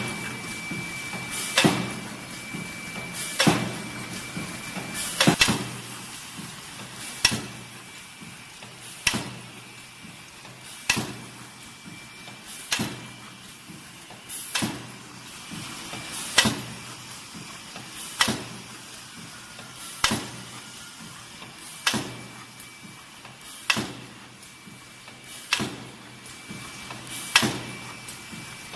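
Kraft paper tray forming machine running, with a sharp clack about every 1.8 seconds as it cycles, over a steady machine hum.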